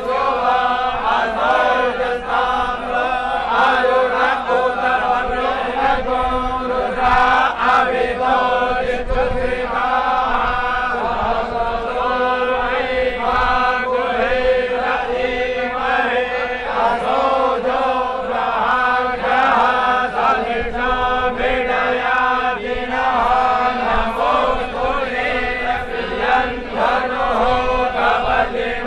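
Voices chanting Hindu puja mantras over a steady drone.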